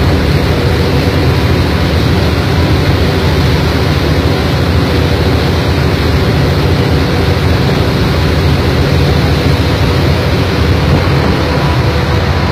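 Purse seiner's engine and deck machinery running steadily while the net is hauled: a heavy low rumble with a faint steady whine above it.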